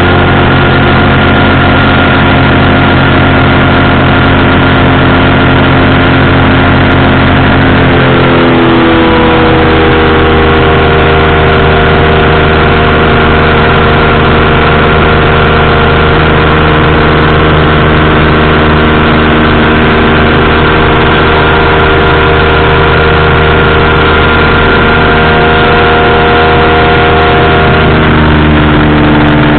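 Powered parachute's engine and propeller running loud and steady in flight. About eight seconds in the engine speeds up, its pitch rising, and near the end it eases back a little.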